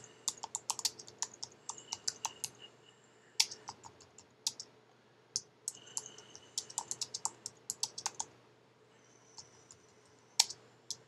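Typing on a computer keyboard: quick runs of keystrokes broken by a couple of short pauses, with a few keys struck harder than the rest.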